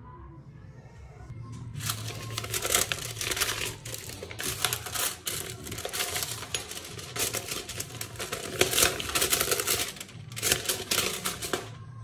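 Paper and plastic packaging being handled and unfolded by hand: crinkling and rustling that starts about two seconds in and goes on as a dense run of crackles with short pauses, stopping just before the end.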